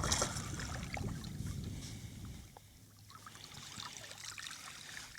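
Water splashing and trickling beside a kayak as a small speckled trout is brought out of the water, fading over the first couple of seconds, with a few light clicks of handling after.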